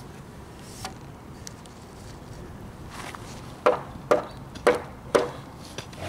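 Four sharp hammer blows about half a second apart, driving a wooden stake into the ground.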